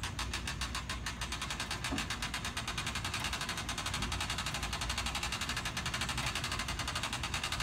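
Hand winch of a Sumner duct jack clicking rapidly and evenly as its crank is turned, winding the mast up to raise a heavy load.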